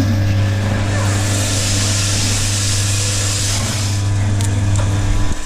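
Coffee roaster's cooling tray running: a steady motor and fan hum with hiss, and freshly roasted beans rustling as the stirring arm sweeps them around the perforated tray. It cuts off suddenly at the end.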